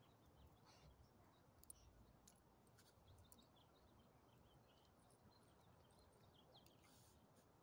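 Near silence: faint outdoor ambience with a few soft, scattered clicks.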